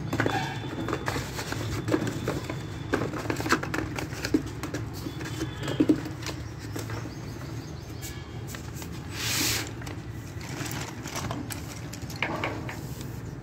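Slate pencils clicking and clattering against each other as a hand stirs through a heap of them in a plastic bag, densest in the first half, with a brief rustle about nine seconds in. A low steady hum runs underneath.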